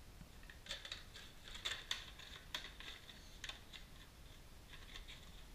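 Small car-parts packaging being handled: a run of crisp clicks and rustles of a cardboard parts box and its wrapping, most of them between about one and three and a half seconds in.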